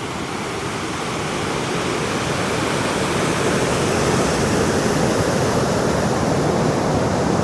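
River rapids: fast water rushing over rocks, a steady wash of noise that slowly grows louder.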